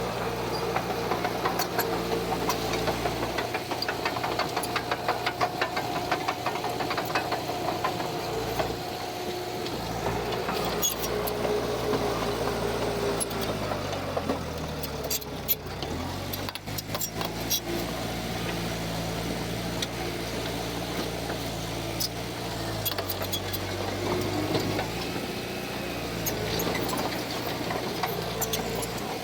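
Heavy diesel earthmoving machine's engine running steadily. Its pitch drops about halfway through and climbs back again. Frequent sharp clanks and ticks run over it, thickest in the first third.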